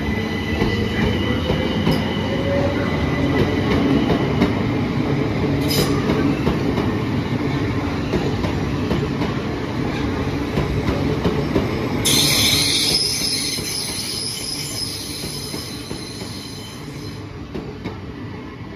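Southern Class 377 Electrostar electric multiple unit running past along the platform, wheels rumbling on the rails, with a rising whine in the first few seconds. About twelve seconds in a high-pitched, multi-toned squeal starts and lasts about five seconds, and the sound then fades as the train draws away.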